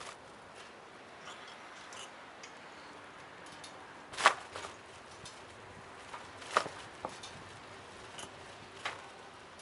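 A few scattered sharp clicks and knocks over faint background noise. The loudest comes about four seconds in, another about two seconds later, and smaller ones follow near the end.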